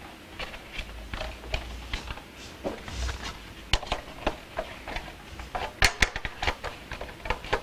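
Scattered clicks and light knocks of hard plastic parts being handled as a hot tub's control panel dome light is reconnected, with a louder cluster of clicks about six seconds in.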